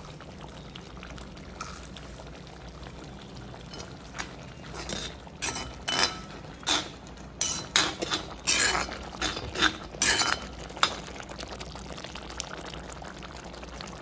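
A perforated metal ladle stirring thick vegetable gravy in a cast-iron kadai, knocking and scraping against the pan in an irregular run of sharp clinks, one or two a second, from about four seconds in until about eleven seconds. A steady low hum lies underneath.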